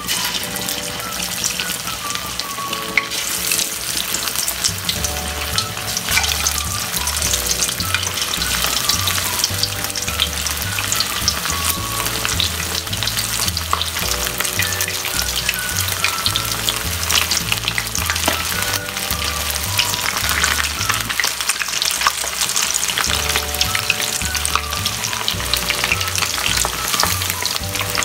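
Pork ribs deep-frying in hot oil in a wok: a dense, steady crackling sizzle as the pieces go into the oil one by one.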